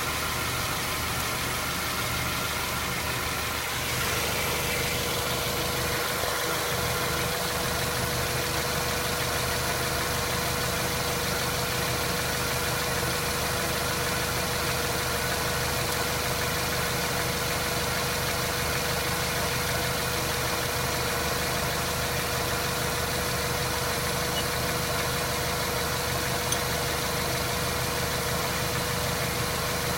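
Mazda 3 running steadily, with a steady whine that sets in about four seconds in and holds. The car has a knock in its automatic transmission that appears when coasting and goes away under throttle.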